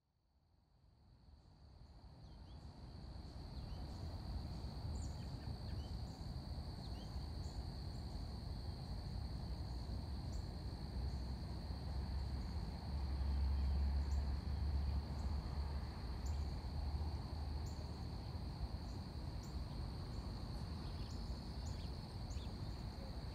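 Outdoor ambience fading in from silence over the first few seconds: a steady high-pitched chorus of insects, with scattered short bird chirps over it. Underneath runs a low rumble that swells a little about midway.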